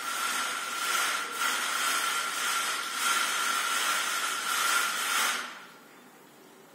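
Vertical blind being drawn closed by hand, its slat carriers sliding along the headrail: a rushing hiss that swells in a few strokes, with a thin steady whine underneath, stopping suddenly about five seconds in.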